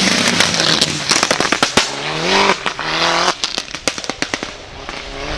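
SEAT León race car revving hard under acceleration, with a rapid string of sharp exhaust pops and crackles. The engine pitch climbs twice, and the sound fades near the end as the car moves away.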